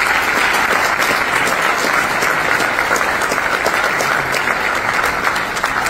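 A banquet-hall audience applauding steadily, sustained clapping from many people at the end of an acceptance speech.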